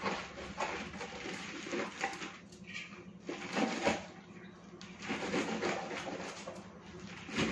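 Kitchen knife chopping bunches of leafy saag greens against a plate set in a metal bowl: irregular cuts through the leaves, with knocks of the blade on the plate.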